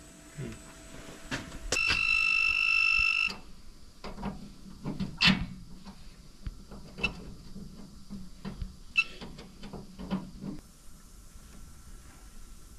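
A loud steady electronic beep lasting about a second and a half, followed by scattered clicks and taps of handling over a low electrical hum that cuts out near the end.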